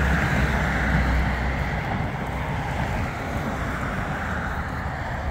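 Wind buffeting the microphone over a steady hiss of road traffic, the low rumble heaviest in the first two seconds and easing after.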